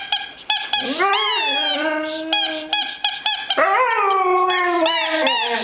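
Siberian husky vocalizing, the whining, howling "talking" of the breed: a few short calls, then two long drawn-out howl-whines that rise and slowly fall, and a run of quick short calls near the end.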